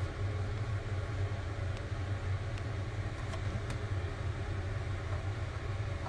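Steady low background rumble, with a few faint light clicks about two to four seconds in.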